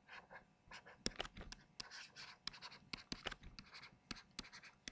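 Faint stylus writing on a tablet computer's screen: a quick, irregular run of pen-tip ticks and short scratches as a word is handwritten.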